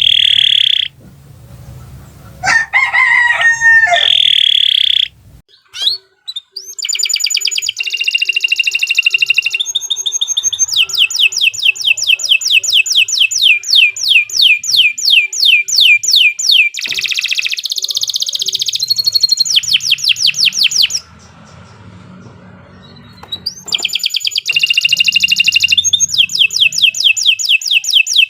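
Canary singing a long song of fast trills and rapidly repeated high phrases, changing from one rolling tour to the next. A lower call with a bending pitch sounds a few seconds in, and the song breaks off briefly about three-quarters of the way through.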